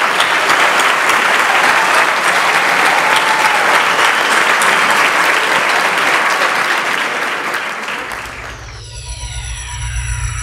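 Audience applauding, a steady dense clapping that fades away about eight seconds in. It gives way near the end to a tone with several falling pitch sweeps.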